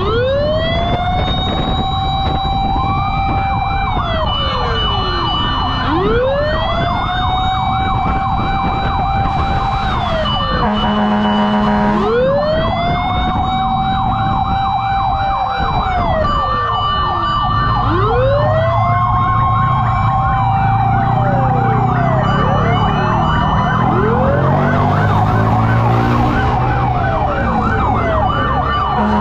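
Emergency-vehicle sirens from a fire truck parade. A slow wail rises, holds and falls about every six seconds, overlapped by a faster yelping siren. A brief horn blast sounds about eleven seconds in.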